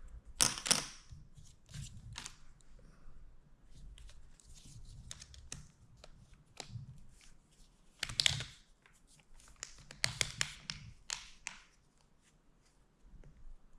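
A plastic phone case being handled and pressed onto a phone: scattered clicks and rustling, with louder clatters about half a second in, around eight seconds, and again between ten and eleven seconds.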